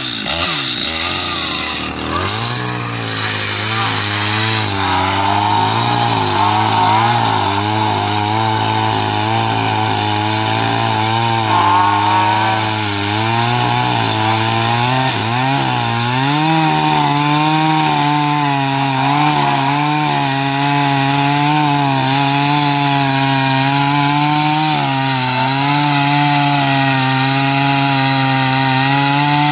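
Stihl MS 250 two-stroke chainsaw running under load while cutting wood. Its engine note wavers as the chain bites, and it rises to a higher, steadier pitch about halfway through.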